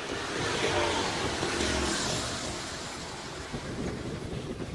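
Road traffic on a town street: a motor vehicle passes, its sound swelling about half a second in and fading after about two and a half seconds, over steady road and wind noise.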